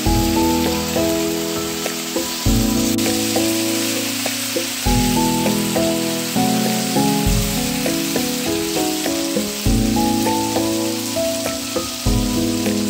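Chicken pieces in masala sizzling as they fry in ghee in a nonstick pan: a steady crackling hiss. Background music with a melody and bass notes changing about every two and a half seconds plays over it.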